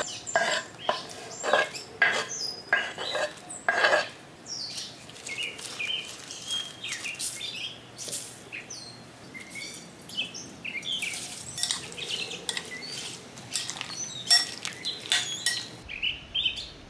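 Kitchen utensils knocking and clinking against a glass mixing bowl and a wooden cutting board as chopped vegetables are scraped in. There is a sharp knock about twice a second for the first four seconds, then lighter, scattered clicks and taps.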